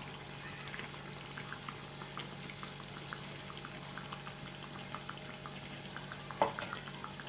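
Fish curry simmering in a clay pot just after tamarind water has gone in, with small irregular pops and crackles over a steady low hum. One sharper knock comes about six and a half seconds in.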